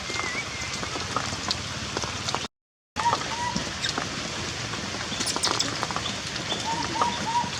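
Steady heavy rain pattering, with short, high squeaky calls from a baby monkey: one early on and a quick run of repeated squeaks near the end. The sound cuts out completely for about half a second partway through.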